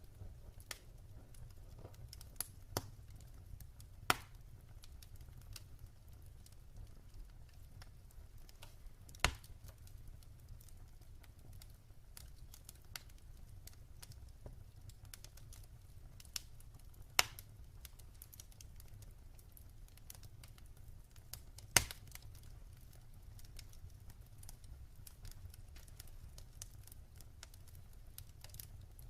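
Wood fire burning in a fireplace: a low steady rumble of the flames with sparse sharp crackles and pops of the burning logs, the loudest a few seconds apart.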